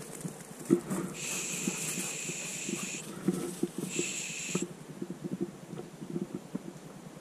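An English setter's electronic beeper collar sounds two flat, steady high beeps, a long one about a second in and a short one about four seconds in. Irregular crackling of footsteps and brush in undergrowth runs underneath.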